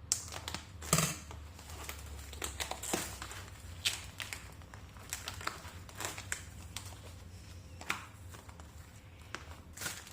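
Irregular crinkling and light clicks of objects being handled, the sharpest about a second in, over a low steady hum.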